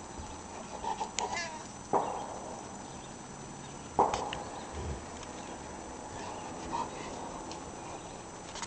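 Domestic cat giving a few short, sudden meows, the loudest about two and four seconds in.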